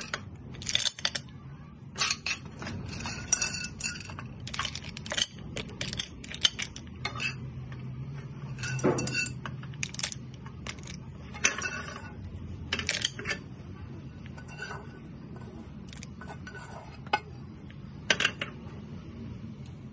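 Irregular light clinks and taps of hard snail shells and dishware as a plate of fried snails is handled. Some of the clinks ring briefly.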